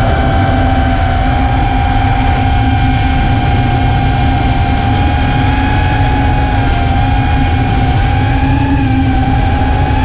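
5-inch FPV quadcopter's motors and propellers whining at a fairly steady pitch, wavering slightly up and down with throttle, over a heavy low rumble.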